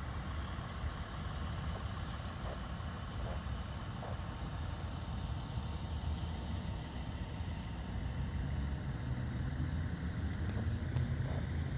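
Steady low rumble of a motor-vehicle engine, growing somewhat louder in the last few seconds.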